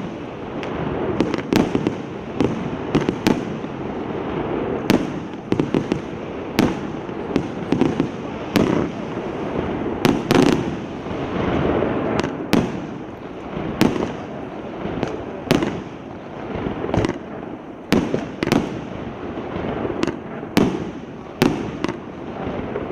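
PK8301 'Lion Bear' firework battery (cake) firing shot after shot: sharp bangs about once a second, unevenly spaced, over a continuous hiss.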